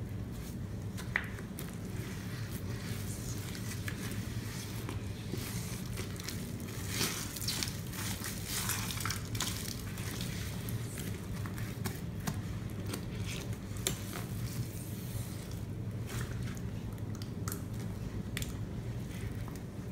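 A sponge scrubbing through thick, wet Lemon Comet cleanser paste mixed with Pine-Sol: irregular squishing, crackling strokes that are busiest around the middle, over a steady low hum.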